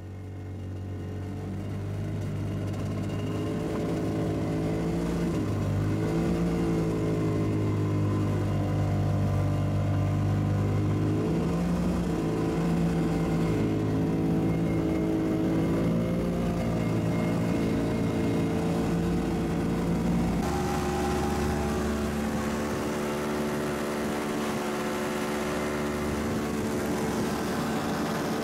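Starcraft 6x6 ATV's engine running as the machine is driven, heard from aboard, its pitch rising and falling with the throttle. About twenty seconds in the note changes to a steadier drone.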